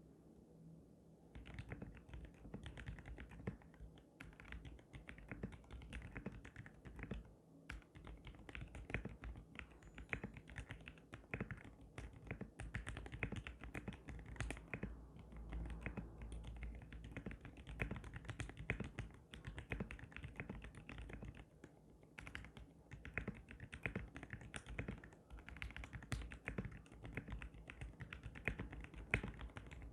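Typing test on a custom 60% mechanical keyboard with lubed Cherry MX Black linear switches in an acrylic gasket-mount case, dampened with Dacron pillow stuffing to make the sound less harsh. Fast, steady keystrokes start about a second and a half in.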